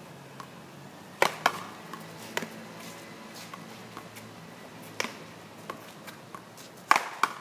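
Paddleball rally: sharp cracks of the ball being struck by paddles and smacking off the court wall, at irregular intervals, several coming in quick pairs, loudest about a second in and near the end.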